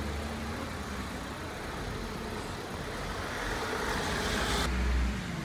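A car driving past close on the street. Its tyre and engine noise builds over a couple of seconds and is loudest near the end, then drops off.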